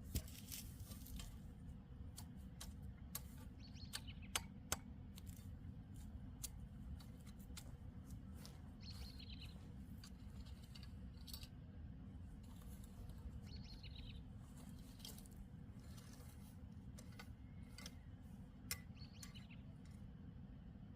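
A small bird chirping, short falling chirps repeated about five times, over a steady low rumble. Scattered sharp clicks and knocks run through it, the loudest just after the start and about four to five seconds in.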